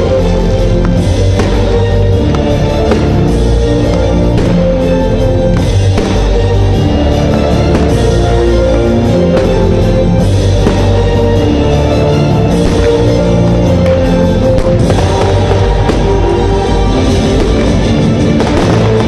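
Loud music with a steady beat, the soundtrack of a fireworks display set to music.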